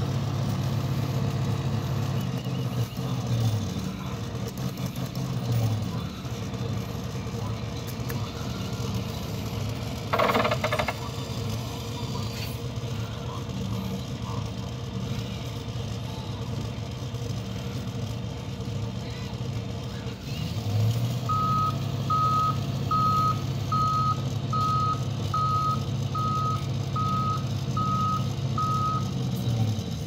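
Arcade claw machine running: a steady low hum fades out in the first few seconds and comes back about two-thirds in. With its return, a short high beep repeats about ten times, a little over once a second, while the claw is steered. A brief louder sound comes about a third of the way in.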